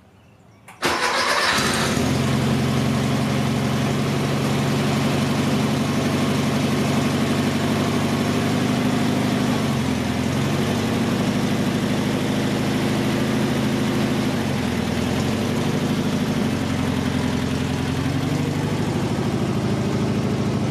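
1968 Volkswagen Beetle's air-cooled flat-four engine starting about a second in, catching at once and then idling steadily.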